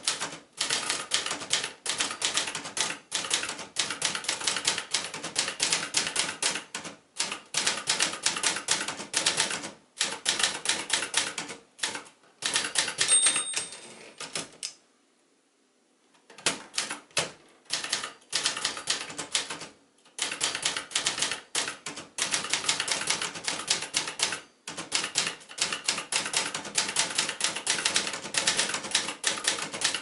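Brisk typing on a 1972 Brother Wizard Automatic manual portable typewriter: runs of sharp type-bar strikes, several a second, broken by short pauses. A little before halfway the margin bell dings once, followed by a louder carriage return and a brief silence before the typing picks up again.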